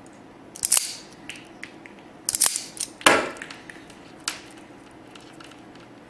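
Hand wire strippers snapping shut and pulling the insulation off 22-gauge wire ends: four sharp snaps, the loudest about three seconds in.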